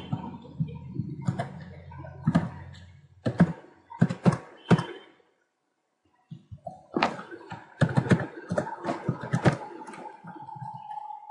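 Computer keyboard being typed on in irregular clacks. The sound cuts out to silence for about a second near the middle.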